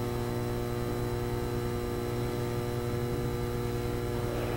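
Steady electrical mains hum, a low even hum with a stack of overtones and no change.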